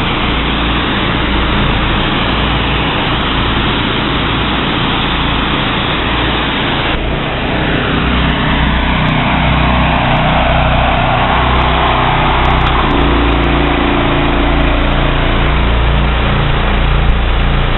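Two 13-horsepower pressure-washer engines running together, their pumps combined to deliver about 8.5 gallons a minute at around 3000 psi, with the hiss of the high-pressure spray from a 25-degree wand nozzle. About seven seconds in, the spray cuts off abruptly and the engines run on.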